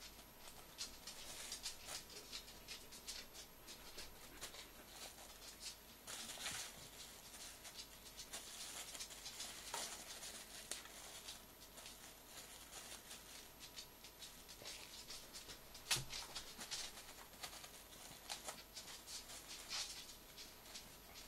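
A kitten batting and pouncing on crumpled clear plastic film: irregular crinkling and rustling with the patter of paws on a rug. One sharp knock about 16 seconds in.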